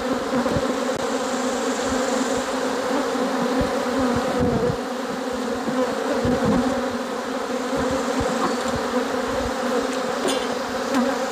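Loud, steady buzzing hum of a mass of honey bees flying around an open hive, from a disturbed, defensive colony that is stinging. Scattered brief low thumps sound under the hum.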